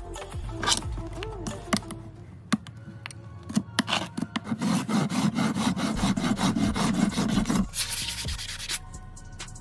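Farrier's rasp filing the outside of a freshly shod horse's hoof wall on a hoof stand: rapid back-and-forth scraping strokes that start about halfway through and stop shortly before the end, with a few sharp clicks before them.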